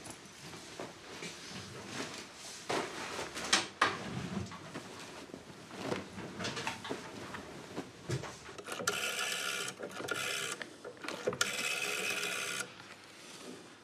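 Cloth being handled with light rustles and knocks, then a telephone rings twice, two long buzzy rings about a second apart, each a little over a second long.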